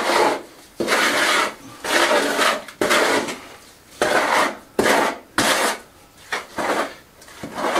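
A trowel scraping and scooping mortar in a metal bucket: a run of rough scraping strokes, about one a second.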